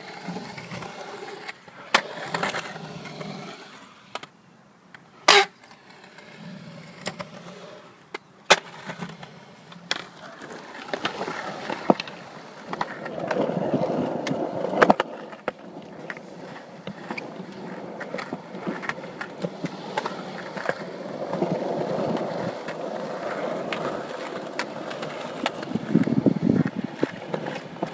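Small skateboard's wheels rolling on the concrete of a skatepark pool, the rumble swelling and fading with speed, with sharp clacks of the board now and then.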